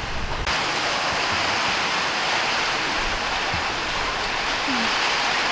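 A loud, steady rushing noise with no distinct strokes or tones begins abruptly about half a second in and holds even.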